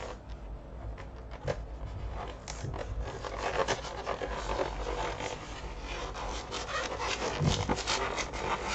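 Packaging of a Pokémon trading-card box being torn open from the side: a busy run of scratchy rips and scrapes that picks up after about two seconds, with a few sharper clicks near the end.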